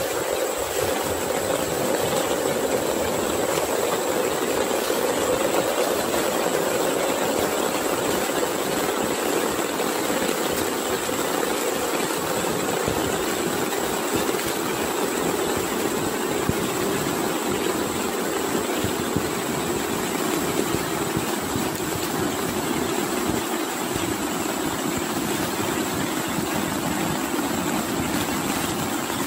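Heavy rain falling steadily on grass and leaves, a dense continuous hiss. A thin, steady high tone sits above it.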